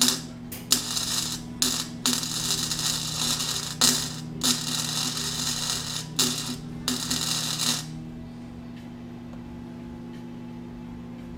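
Electric arc welding: tack welds fixing a coupler onto an electric motor's shaft. The arc crackles in a run of bursts with short breaks and stops about eight seconds in, leaving a steady low hum.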